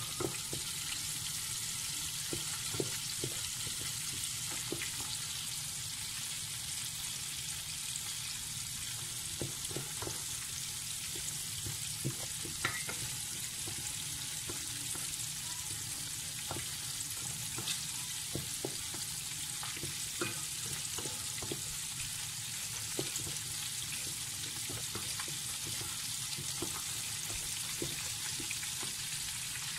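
Flour cooking in oil in a stainless steel pot, a roux being browned for gravy, sizzling steadily while a spatula stirs it. Scattered light scrapes and taps of the spatula on the pot.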